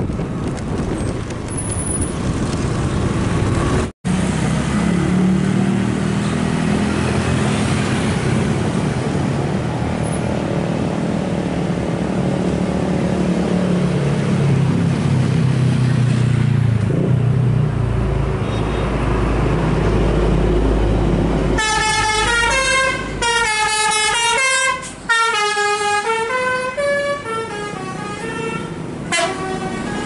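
Tour coaches' diesel engines running as the buses drive past. About three-quarters of the way through, a basuri telolet horn plays a warbling tune of rising and falling notes for about seven seconds. Wind rumbles on the microphone in the first few seconds.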